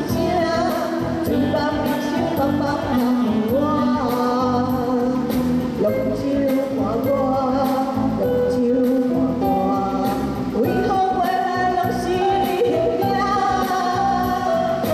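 A woman singing a nakashi-style song through a microphone and PA over electronic keyboard backing with a steady beat, holding long, sliding notes.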